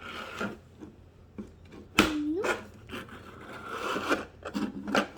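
Plastic Play-Doh toy press being handled and worked: scraping and rustling, with a sharp click about two seconds in followed by a brief vocal sound.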